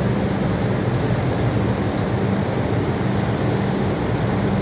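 Steady rushing hum inside a standing R142 subway car, from its air conditioning and onboard equipment running, with a low hum underneath.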